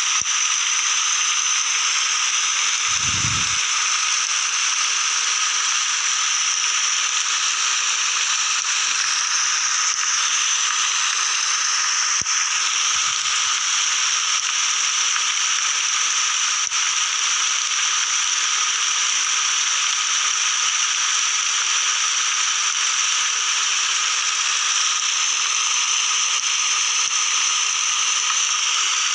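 Steady rainfall, an even hiss that does not let up, with a brief low thump about three seconds in.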